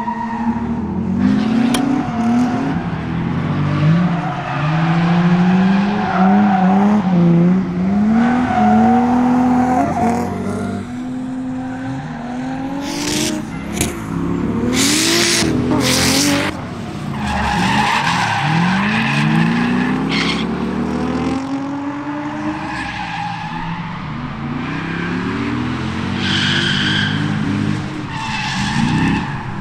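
A C5 Corvette's 5.7-litre LS1 V8 revving up and down again and again through drift slides, with the rear tyres squealing and skidding on the pavement; the tyre screech is loudest in a few bursts about halfway through.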